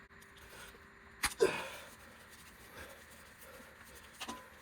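Workshop handling noise from removing a wheel hub's dust shield: a sharp metallic click about a second in, followed at once by a short, louder noisy burst that fades out, then faint handling sounds and two small clicks near the end.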